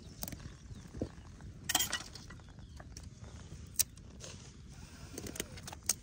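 Open wood fire of dry branches burning, with scattered sharp crackles and pops (a cluster about two seconds in, a few more near the end) over a steady low rumble.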